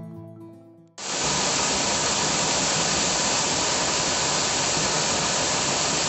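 Guitar music fading out, then from about a second in the steady, even rush of a waterfall.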